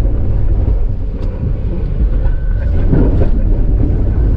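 Low, steady rumble of an off-road vehicle's engine running, heard from inside the cab, swelling a little about three seconds in.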